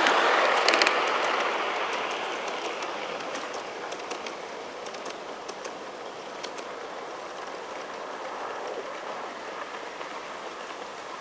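G-scale (1:22.5) model train running away along the adjacent garden-railway track: its wheel and running noise fades steadily over about five seconds, with a few sharp clicks in the first second, leaving a faint steady hiss.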